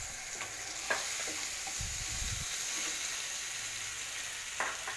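Hot oil sizzling steadily in a non-stick kadai as a tempering of peanuts, dals, chillies, turmeric and freshly added ginger-garlic paste fries, with a wooden spatula stirring through it and clicking against the pan a couple of times.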